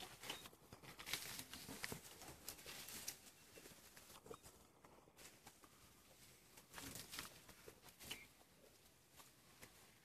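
Faint, scattered rustling and crackling of dry grass and brush as elephants feed, the elephant calf working its trunk into the roadside grass. It is busiest in the first few seconds and again about seven seconds in.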